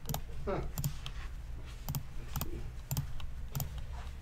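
Computer mouse and keyboard clicks: about seven sharp clicks at uneven intervals, over a low steady hum.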